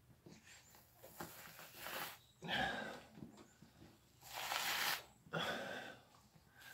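Deer hide being pulled down by hand and torn away from the carcass, in four or five short rasping pulls, the longest about four seconds in.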